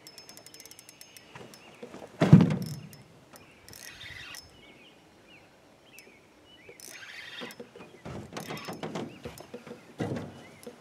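Spinning reel's drag clicking in a fast run of ticks as a large hooked fish (a redhorse) pulls line, then a single heavy thump about two seconds in and scattered knocks and shuffling in the aluminium jon boat.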